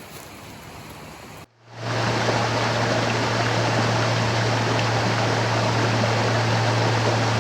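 Mountain stream rushing over rocks, a quieter flow for the first second and a half, then after a sudden break a much louder, steady rush of water with a steady low hum beneath it.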